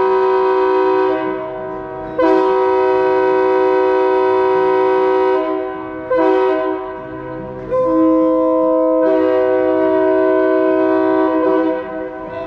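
Locomotive air horn sounding a chord: the end of one long blast, then a long blast, a short one and a final long one. This is the long-long-short-long pattern of a grade-crossing signal.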